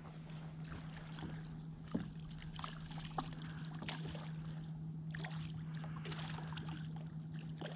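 Faint steady low hum with a few small scattered clicks and knocks in a small fishing boat.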